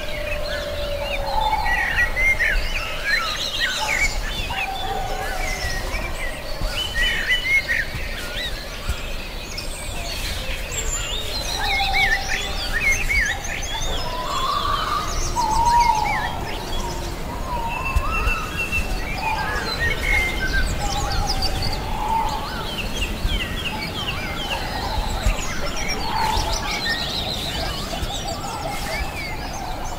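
Forest bird chorus: many birds chirping and singing at once, with some lower, sliding whistled calls among them.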